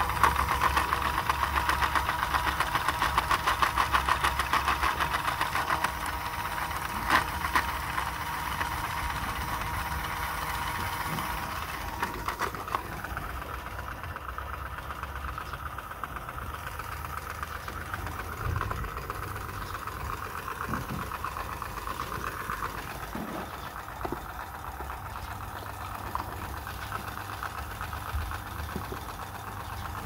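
Small battery-powered toy motor buzzing and whirring steadily, louder for the first dozen seconds and quieter after, with a few light plastic clicks.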